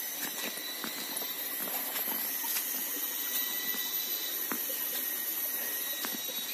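A small forest stream flowing, heard as a steady, even hiss of water, with a constant high-pitched whine over it and a few faint light clicks.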